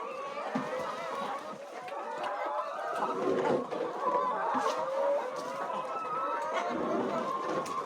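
A flock of chickens clucking and calling, many overlapping voices at once, with a few sharp ticks among them.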